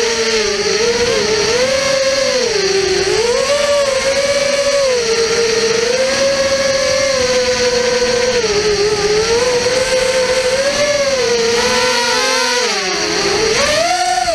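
FPV quadcopter's brushless motors and propellers whining, heard from its onboard camera, the pitch rising and falling with each throttle change, with a sharp dip and a steep climb near the end.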